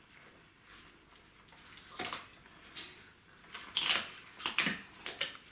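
Czechoslovakian wolfdog puppy eating noisily: wet chewing and smacking in short, irregular chomps, louder from about two seconds in.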